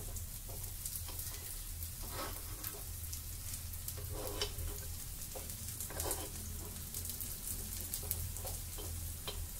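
Sweet appam batter frying in ghee in a non-stick appe (paddu) pan: a steady sizzle with fine crackling. A steel spoon scrapes in the cups now and then as the appams are turned over.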